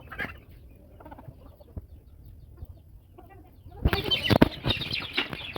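Chickens clucking, with a louder, rough burst of noise starting about four seconds in.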